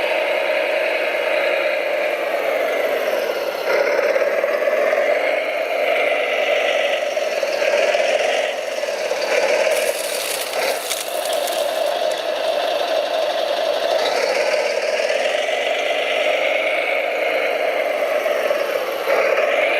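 Radio-controlled scale construction machine working: a steady motor hum under a gear whine that rises and falls as it speeds up and slows down, with a short spell of rattling clicks about ten seconds in.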